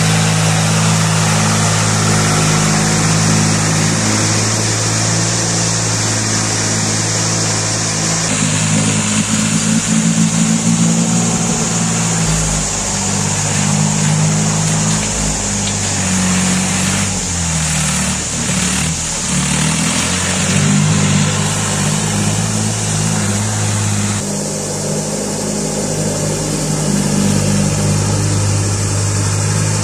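Massey Ferguson tractor's diesel engine running as it drives through a shallow creek, with a steady hiss of flowing water. The engine note sags and picks up again about halfway through, and the sound changes abruptly a couple of times.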